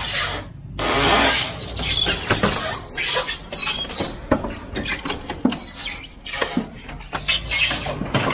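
Black enclosed cargo trailer's side scraping and squealing against a wooden fence as it is pulled past, in irregular rubbing bursts, with the tow vehicle's engine running low underneath.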